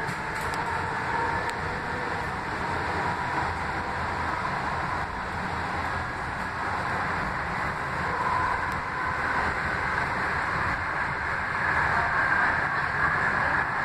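2005 Kinki Sharyo light-rail vehicle running at speed, heard from inside the passenger car: steady rolling noise with a faint whine, a little louder in the second half.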